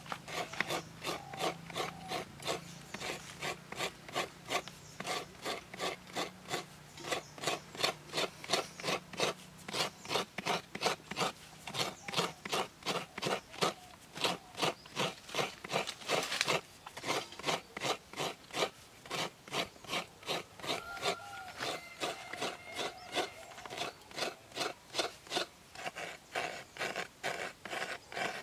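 Coconut half scraped by hand against a metal coconut scraper, a steady rhythm of rasping strokes about three a second.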